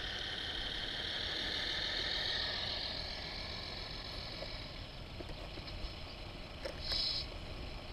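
Radio-controlled dump truck with an engine sound module: its simulated diesel truck engine runs as the truck drives up the track, then drops to a quieter idle after about three seconds as the truck stops. A short hiss comes near the end.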